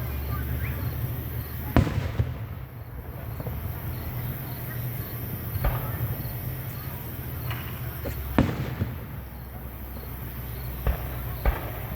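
Fireworks going off: about five sharp bangs a few seconds apart, the loudest about two seconds in and again a little past eight seconds, over a steady low rumble.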